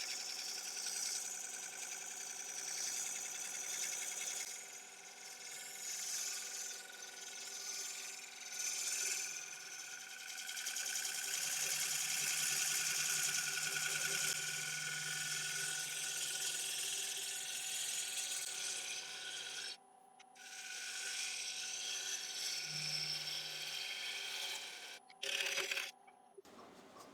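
Bowl gouge cutting the outside of a spinning ash bowl on a wood lathe: a steady hiss of the cut over the lathe's motor hum, with short breaks near the end as the tool leaves the wood.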